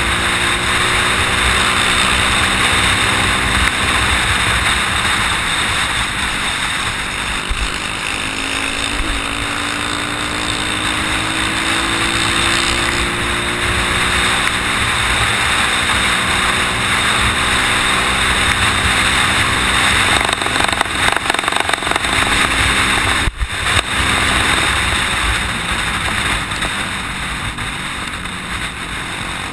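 Off-road motorcycle engine running at speed, heard from on board, with heavy wind rush on the microphone. The engine pitch climbs for a few seconds partway through, and the sound briefly drops out about 23 seconds in.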